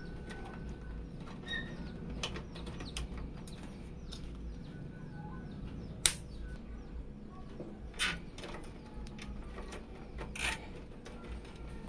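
Scattered small clicks and rustles of PC components being handled during assembly, with one sharp click about six seconds in. A steady low hum runs underneath.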